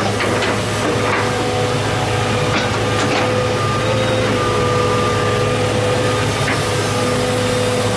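John Deere 200 excavator's diesel engine running steadily under load with a constant whine while the boom lifts and swings a bucket of dirt. A few light knocks are scattered through it.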